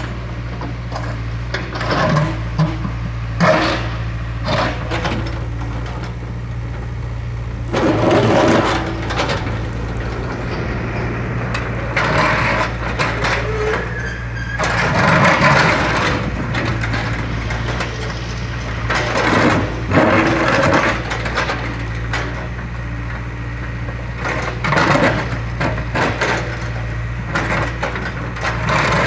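Hydraulic excavator's diesel engine running steadily, with repeated bursts of scraping, cracking and crushing every few seconds as the machine works a concrete slab.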